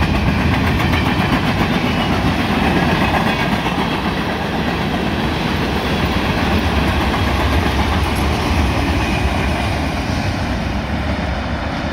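Freight cars of a long mixed freight train rolling past, their steel wheels running steadily over the rails, easing off slightly near the end as the cars pull away.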